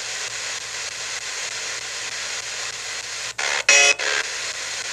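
Spirit box sweeping through radio stations, played through a small portable speaker: steady static hiss. A little past three seconds in, the static drops out and a brief loud snatch of station sound cuts in for about half a second.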